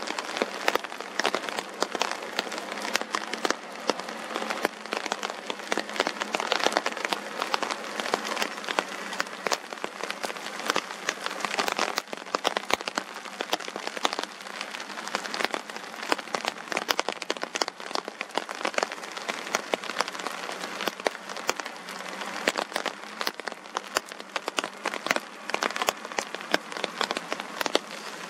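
Steady rain, with a dense, irregular patter of individual raindrop hits.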